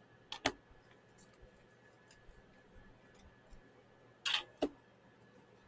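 Game cards laid down on a tabletop: two light taps about half a second in, then a short card rustle and another tap about four and a half seconds in.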